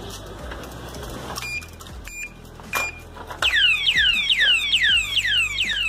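Motion-sensor alarm padlock gives three short high beeps, then sets off its siren about three and a half seconds in: loud, fast repeated falling wails, about three a second.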